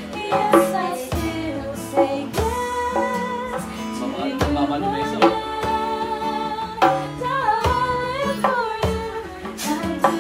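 A woman singing a slow song live, accompanied by a strummed acoustic guitar and a hand drum played with the bare hands.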